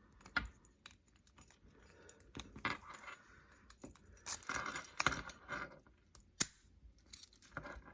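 Keys jangling and small metallic clicks as a key is worked in a vintage Best padlock. A single sharp click about six and a half seconds in, the loudest sound, as the shackle springs open.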